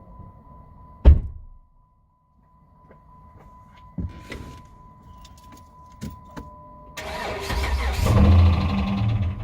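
A sharp thump about a second in, then from about seven seconds the 2009 Dodge Charger SXT's 3.5-litre V6 is cranked by the starter with a fast even pulsing, without catching. This is a crank-no-start fault that a new fuel pump has not cured.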